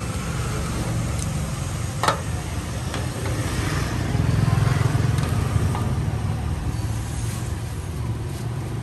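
Motorbike engines of nearby street traffic running with a steady low rumble that swells around four to five seconds in, with a sharp click about two seconds in.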